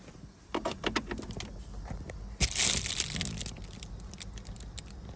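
Handling noise while hooking up a rooftop solar panel's cable: a quick run of clicks and knocks, then a loud rustle lasting about a second, about two and a half seconds in.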